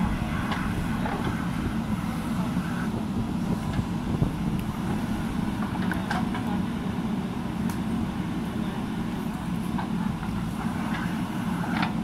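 JCB backhoe loader's diesel engine running steadily under digging load as the rear backhoe arm scoops and swings soil, with a few short sharp knocks from the bucket and arm.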